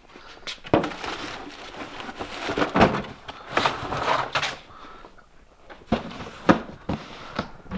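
Handling noises: a string of sharp knocks and clicks with rustling between them, busiest in the first four seconds or so and sparser after.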